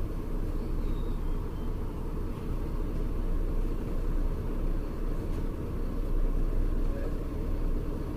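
Mercedes-Benz O-500U city bus engine with a ZF Ecomat automatic transmission, running with a steady low rumble.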